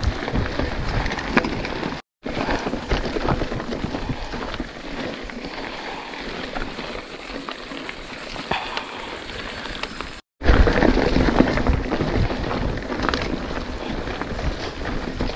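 Mountain bike riding over a dry dirt and leaf-litter trail, heard from a camera on the bike or rider: tyres crunching and crackling over the ground, with rattles and knocks from the bike and wind rumbling on the microphone. The sound cuts out briefly twice, about two seconds in and again about ten seconds in, and is louder and rougher after the second cut.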